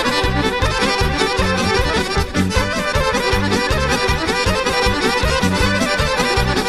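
Background music led by an accordion over a steady beat.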